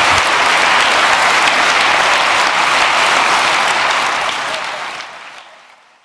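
A large audience applauding steadily, dying away over the last two seconds.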